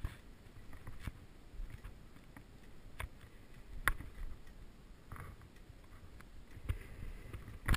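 Handling noise from a camera carried around a parked scooter: a few scattered clicks and knocks over a low rumble, with no engine running.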